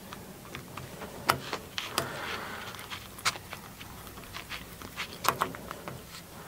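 Small screwdriver driving a tiny machine screw into a 3D printer's endstop mount: a handful of light, separate clicks and scrapes of the tool and small metal parts. The screw turns freely but is not yet tight.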